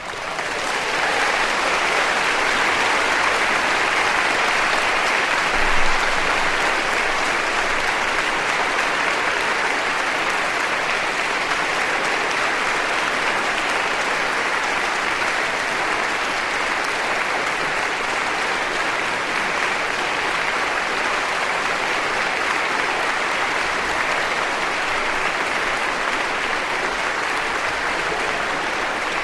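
A large audience applauding, many people clapping in a dense, steady stream. It swells up in the first second and holds, with a brief louder bump about six seconds in.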